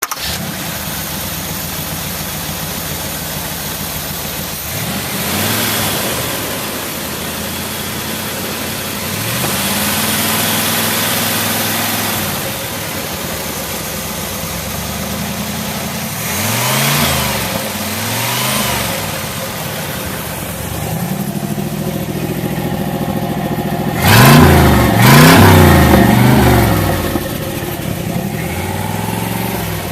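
1968 Corvette's V8 engine idling, with the throttle blipped about eight times so that it revs up and falls back. Some revs are slow and held for a couple of seconds, some are quick, and the two sharpest and loudest come close together about 24 seconds in.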